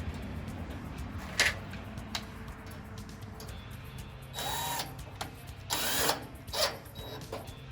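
Two short bursts of a cordless drill-driver running to fasten the nut and bolt holding a gas griddle burner's igniter, with sharp clicks of metal hardware before and after.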